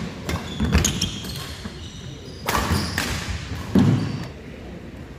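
Badminton doubles rally: several sharp racket strikes on the shuttlecock and players' feet thumping on the wooden court floor over the first four seconds, the loudest impact near the four-second mark.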